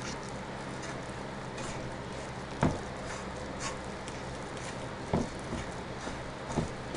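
Spoon stirring a thick, wet zucchini bread batter in a large mixing bowl: soft squishing and scraping, with three knocks of the spoon against the bowl.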